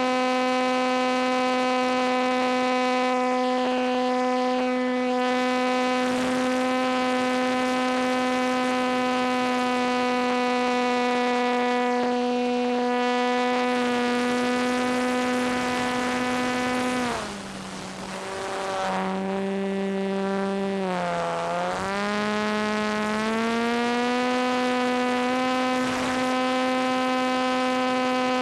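RC T-28 model plane's motor and propeller heard from on board, a steady high drone at cruise throttle. About 17 s in the throttle is pulled back: it drops in level and pitch, wavers, then climbs back up to the steady drone a few seconds later.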